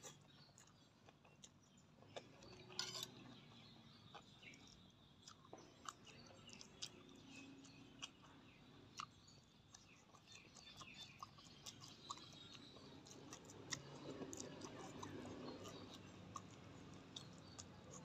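Faint chewing and mouth sounds of a person eating a spicy seafood papaya salad with rice noodles, with many small scattered clicks and lip smacks.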